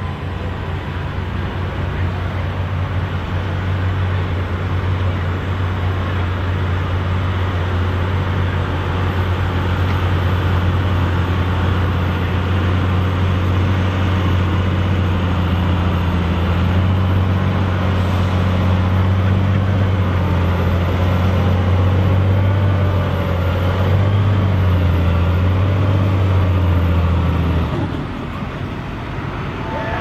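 Tractor's diesel engine running steadily under load, a continuous low drone with a slowly wavering pitch that drops away near the end.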